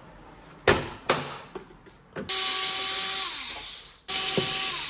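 Small cordless electric screwdriver with a Torx bit backing out fairing screws. A couple of sharp knocks come first. Then the motor runs with a steady whine for under two seconds, its pitch sliding down as it stops, and starts running again just after.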